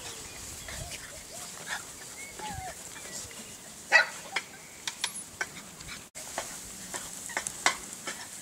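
A litter of young puppies yipping and whining as they run. There are short, high, squeaky gliding whimpers, and several sharp yelps, the loudest about four seconds in.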